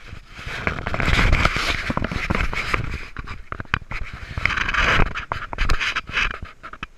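Gorse and scrub brushing and scratching against a body-worn camera, with scrapes and clicks of footsteps on rock, in uneven rushes.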